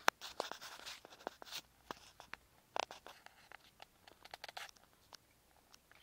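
Cockatiel and regent parrot clambering on a wire cage top: irregular short clicks and scratching of claws and beaks on the metal wire. There is a busy patch in the first second and a half, and more around three and four and a half seconds in.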